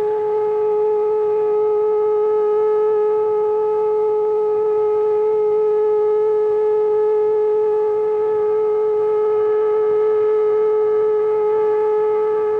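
A 20-inch prototype toroidal whistle (Ultrawhistle) blowing one loud, steady note of about 430 Hz with its overtones, held without a change in pitch or level.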